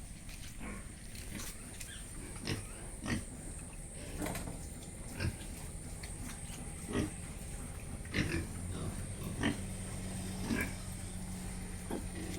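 Pigs grunting in short, separate grunts, roughly one every second or so.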